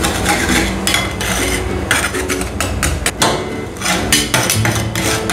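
Two metal spatulas chopping and scraping on a frozen stainless-steel ice-cream-roll pan: a quick, irregular run of sharp metal clacks and scrapes as the coffee mixture freezes on the plate and is chopped up.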